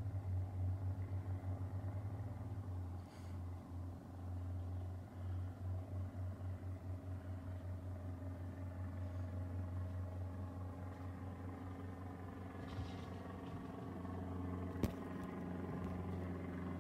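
Cessna 172N Skyhawk's four-cylinder Lycoming piston engine and propeller flying over as a low, steady drone that pulses and wavers. A single sharp click about three-quarters of the way through.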